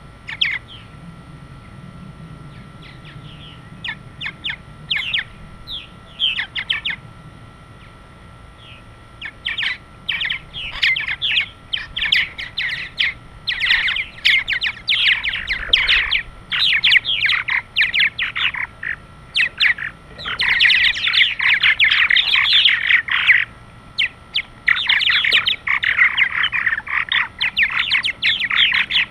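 Purple martins calling. A few scattered chirps at first, then from about nine seconds in a dense, nearly continuous chatter of many birds.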